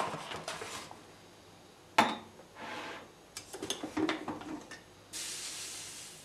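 Kitchen handling sounds around a drip coffee maker. There are light clicks and rustling, then a sharp metal clink about two seconds in as the small copper canister is closed. After that comes clattering as the glass carafe is taken from the machine, and a short hiss of about a second near the end.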